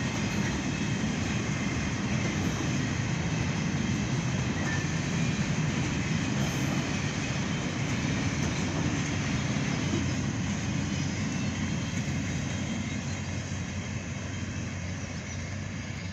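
Freight train of covered boxcars rolling past on the rails, a steady rumble of wagon wheels that eases off slightly near the end as the last wagon goes by.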